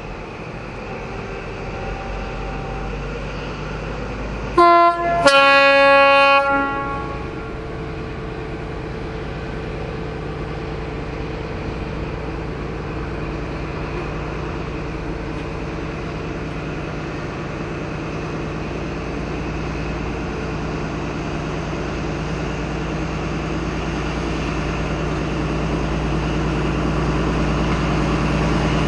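Class 43 HST diesel power car 43048 sounds its two-tone horn about five seconds in: a short higher note, then a longer lower one. Its diesel engine runs steadily around it, growing louder as the train comes on.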